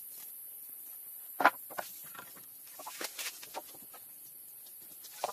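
Wooden poles knocking against each other as they are laid into a crossed lattice: a few sharp knocks, the loudest about one and a half seconds in, then a cluster of lighter ones around three seconds and another near the end.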